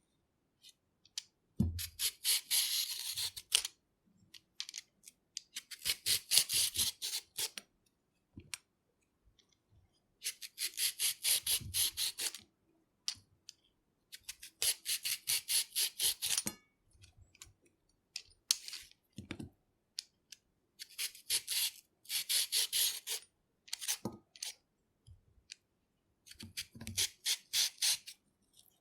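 Hand vegetable peeler scraping strips of peel off a carrot in quick, rasping strokes. The strokes come in six bursts of about two seconds, with short pauses and faint clicks between them.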